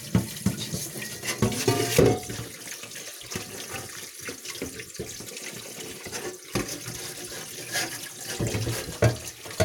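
Kitchen tap running with water splashing as a cooking pot is rinsed under it, washing off cleaning paste and soot, with occasional light knocks of the pot.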